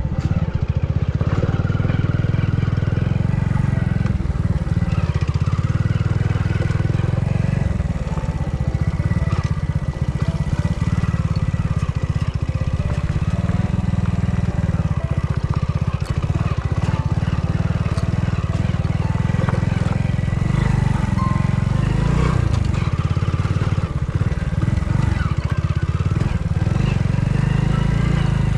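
Hero Splendor motorcycle's single-cylinder four-stroke engine running steadily as the bike is ridden along a rough off-road track.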